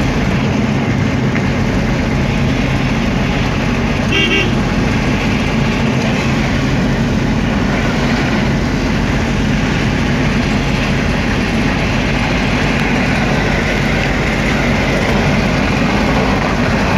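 A car driving along, heard from inside the cabin: a steady engine and road rumble, with one short horn toot about four seconds in.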